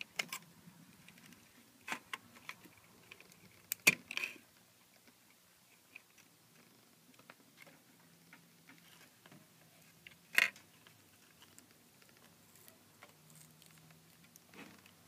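Sparse small plastic clicks and rattles of cable plugs being handled and pressed into the sockets of an LCD TV's main circuit board, with two sharper clicks about four seconds in and again about ten seconds in.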